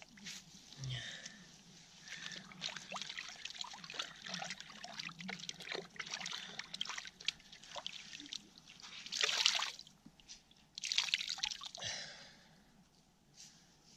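Water splashing, trickling and dripping as hands scoop and splash cold water in a shallow mountain stream, with two louder splashes near the end.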